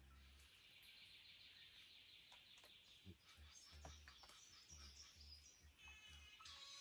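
Faint dawn forest ambience: a steady high background hiss with scattered bird calls, including a quick repeated trill near the end. A few soft ticks fall about halfway through.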